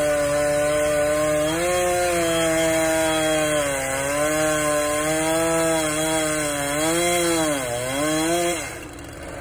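Chainsaw running at full throttle as it cuts through a rotten tree trunk, its pitch sagging and recovering as the chain loads up in the cut. Near the end the throttle is let off and the saw drops to a quieter idle.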